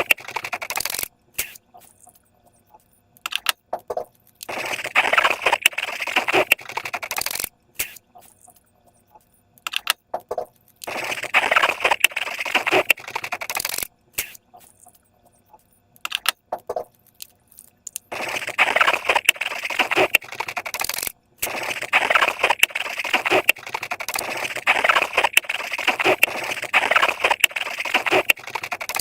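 Slime being worked by hand, with dense crackling, clicking and squishing in several bursts a few seconds long, separated by short quiet pauses.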